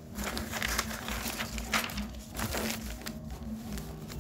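Sheets of lined notebook paper rustling and crinkling as they are handled and turned, with irregular small crackles.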